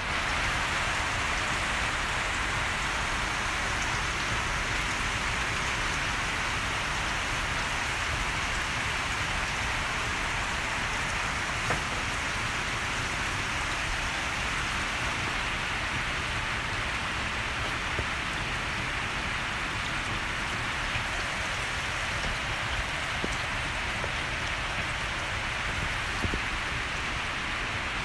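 A steady rushing hiss, like rain, with a few faint small clicks.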